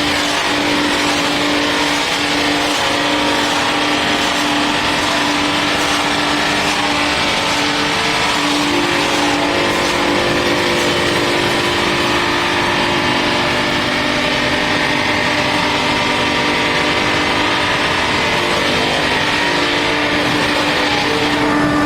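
Four-shaft multi-blade circular-saw log edging machine running steadily, its saws and motors giving a loud, even noise with several held tones that shift about eight seconds in.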